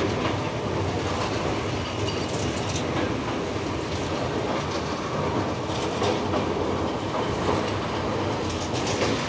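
LHB passenger coach running fast over rail track: a steady rolling rumble of wheels on rails, with scattered sharp clicks.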